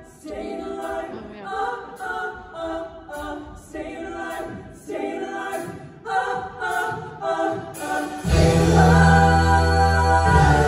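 Choir of women's voices singing in short, unaccompanied phrases with brief gaps between them. About eight seconds in, loud instrumental music with a deep bass comes in and carries on.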